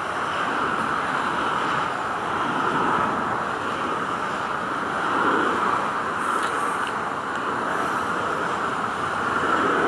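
Boeing 747-400's four turbofan jet engines at takeoff thrust during the takeoff roll, heard from a distance as a steady, even jet noise.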